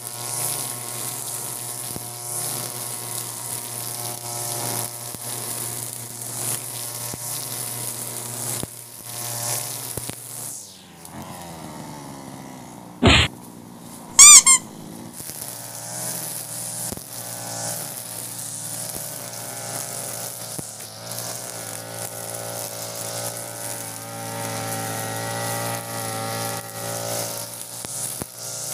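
Europa Hilt EH4300 (TB43) two-stroke brush cutter with a 2.4 mm nylon trimmer head running at cutting speed through overgrown grass. About ten seconds in the engine drops off and slows, then revs back up a few seconds later with a wavering pitch. Two brief, very loud sharp sounds come about a second and a half apart in the middle.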